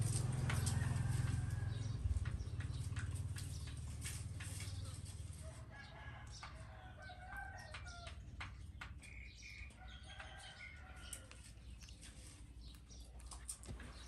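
Chickens clucking, with short calls scattered through the second half. A low steady hum fades out about five seconds in, and sharp clicks come throughout.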